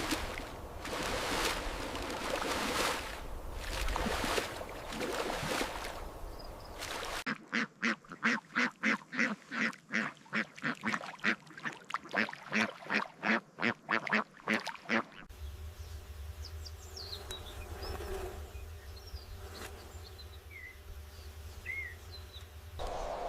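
A rapid run of loud, evenly spaced animal calls, about two to three a second, lasting some eight seconds in the middle, followed by a few faint bird chirps over a low steady rumble.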